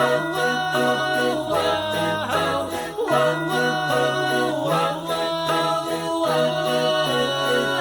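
Background music with a steady beat, a repeating bass line and bright jingling accompaniment.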